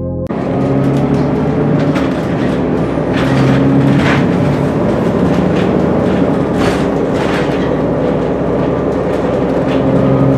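Cummins ISL9 diesel engine of a 2016 Gillig Advantage low-floor bus running steadily. Irregular rattles and knocks sound throughout.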